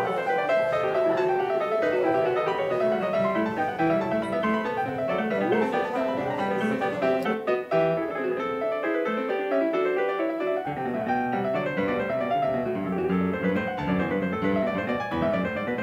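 Background piano music, a steady flow of quick notes, with a brief dip just past halfway.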